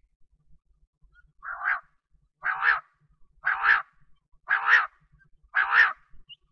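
Quail calling: five harsh, buzzy calls about a second apart, the first one softer than the others.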